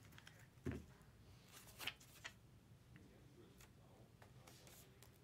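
Near silence: faint room tone with a few soft, short taps.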